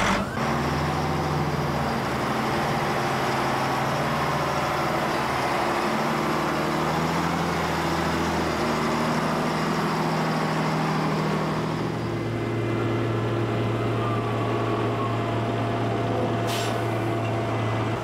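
Volvo BM L150 wheel loader's diesel engine running steadily as it drives with a grapple load of logs; the engine note changes about twelve seconds in.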